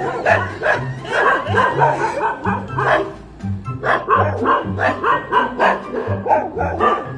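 A dog barking repeatedly, short sharp barks in quick succession, over background music with a repeating bass line.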